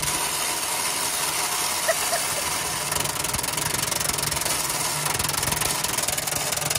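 Milwaukee impact wrench hammering steadily in rapid, even blows on a seized, rusty cab-mount bolt that will not break loose.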